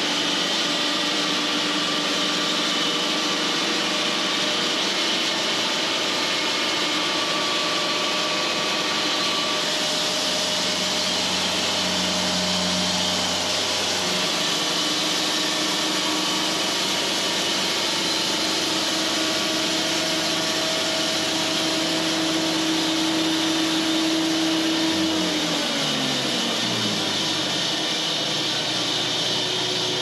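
Cook's bandsaw sawmill running and cutting a slab off a red oak log: a steady, loud machine noise with sawing through the wood. Near the end some of its tones fall in pitch.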